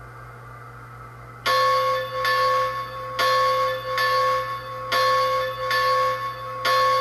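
Digitally sampled steam locomotive bell from a Soundtraxx sound decoder, played through the model's small speaker, ringing in steady strokes a little under a second apart. It starts about a second and a half in, after a faint steady hum.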